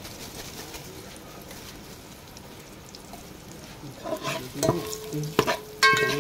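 Cumin seeds and bay leaves sizzling in hot oil in a large aluminium pot. From about four seconds in, a steel ladle stirs and knocks against the pot several times, each knock ringing.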